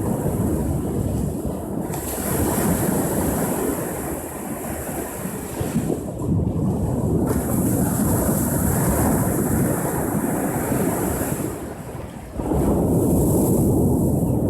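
Ocean surf breaking and washing in, a continuous rush that swells and eases, jumping abruptly louder about twelve seconds in.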